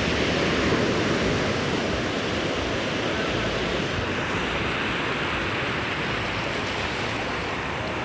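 Ocean surf washing on a beach: a steady rush of breaking waves, swelling about a second in and then slowly easing.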